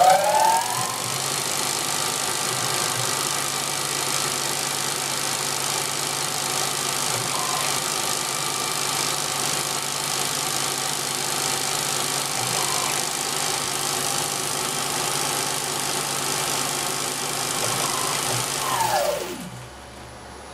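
Small CNC lathe spindle motor speeding up with a rising whine, then running steadily at speed with a wide hiss. Around nineteen seconds in it winds down with a falling whine and the sound drops away.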